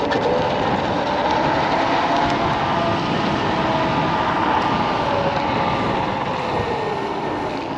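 Kaabo Wolf King GT dual-motor electric scooter riding at speed: a steady rushing noise with a faint motor whine that slowly glides down in pitch in the second half.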